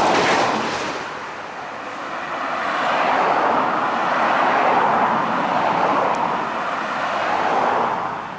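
Road traffic passing on a main road: one vehicle going by fades out in the first couple of seconds, then another swells up and passes, dying away near the end.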